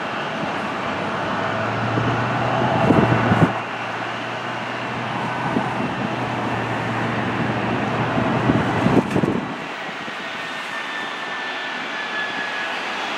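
Twin-engine jet airliner on final approach, its engines giving a steady rushing drone with a faint whine coming in near the end. Two louder rough swells of noise come about three and nine seconds in.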